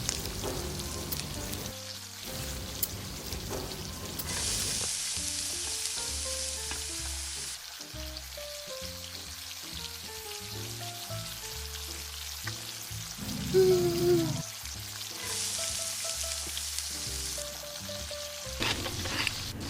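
Meat sizzling on a grill, with two louder surges of sizzling, one about four seconds in and one near the end, over light background music. A short wavering tone sounds once about two-thirds of the way through.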